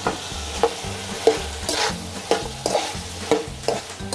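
A metal slotted spatula scrapes and knocks against an aluminium karahi about twice a second as diced carrot, onion and green capsicum are stir-fried in a little oil. A light sizzle runs underneath while the capsicum softens over the heat.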